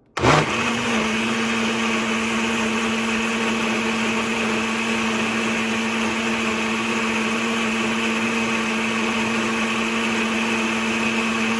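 Countertop blender switched on, its motor spinning up in a fraction of a second and then running steadily at high speed as it purees diced fruit and coconut milk into a smoothie.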